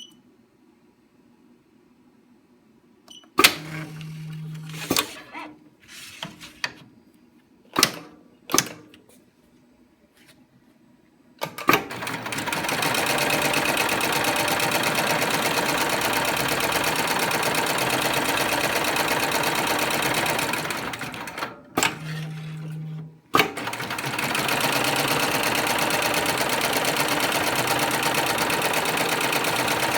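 SEWPRO PSM-5020 heavy-duty programmable sewing machine: a few clicks and knocks with a brief low hum, then the machine stitching steadily at speed for about ten seconds, a short pause with the same brief hum, and stitching again.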